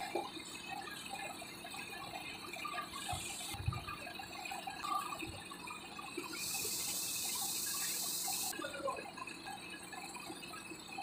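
Compressed air hissing from the wrecker tow truck's controls in one burst of about two seconds, starting and stopping sharply about halfway through, over a quiet background.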